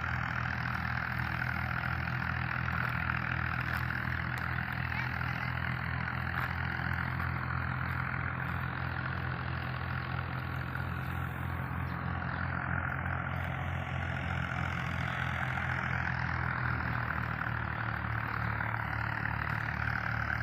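An engine running steadily at idle, with a fast, even pulse, unchanged throughout.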